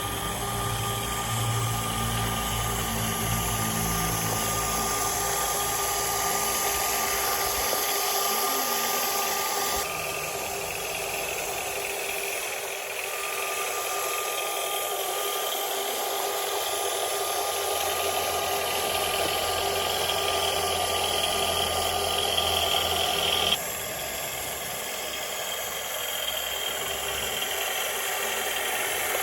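Small electric motors and gearboxes of toy RC excavators running steadily, a mechanical whine with a rattling hiss. The sound changes abruptly twice, about ten seconds in and again near twenty-four seconds.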